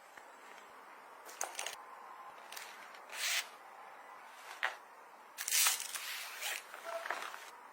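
Small items being handled: scattered clicks and taps, with two longer rustles, one about three seconds in and a louder one about five and a half seconds in.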